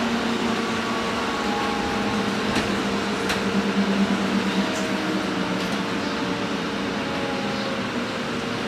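Cabin noise of a battery-electric Irizar ie bus under way: steady road and tyre rumble with the electric drive's whine in a few tones, some drifting slowly downward. A few short sharp clicks sound in the middle.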